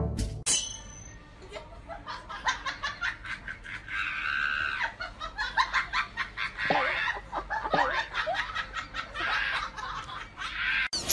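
Human laughter in quick, repeated bursts.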